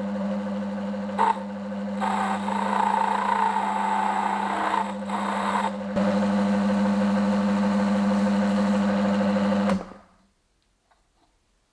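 Wood lathe running with a steady hum, a short click about a second in, then switched off near the end and falling silent quickly.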